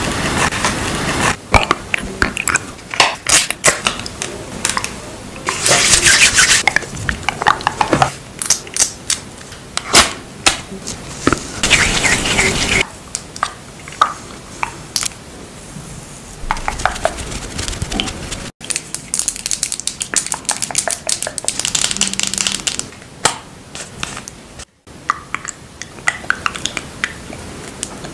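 Close-miked skincare and makeup handling sounds: a damp sheet mask peeled off the face, then a run of sharp clicks and taps and brief rustling strokes from cosmetics. The sound drops out suddenly twice for a moment.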